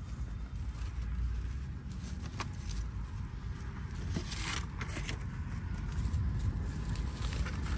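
Plastic litter crinkling and scraping a few times as it is picked up out of dry grass, over a steady low rumble.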